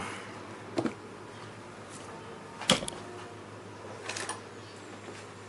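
Three short clicks of brake pad parts and shims being handled, the sharpest near the middle, over a steady low hiss.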